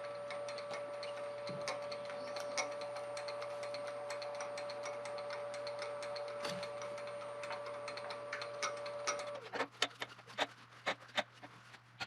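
A wood lathe running with a steady high whine and rapid, irregular ticking, which cuts off suddenly about nine seconds in. A few sharp knocks follow as the wood blank is handled on the worm screw.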